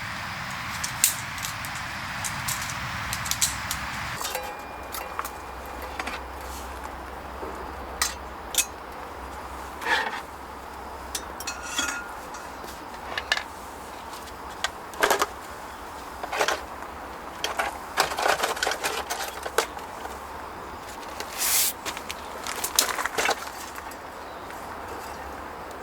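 Camping gear being handled: scattered short knocks, clicks and clinks of objects over a steady outdoor background. The background changes abruptly about four seconds in.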